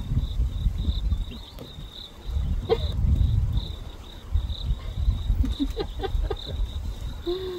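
Insect chirping in a high, regular pulse, about two pulses a second, over a low rumbling noise that swells and fades. A few faint short chirps and one brief low call near the end.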